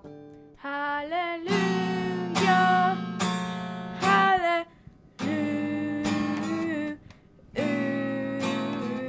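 A young woman singing while strumming an acoustic guitar, in three phrases with short breaks between them.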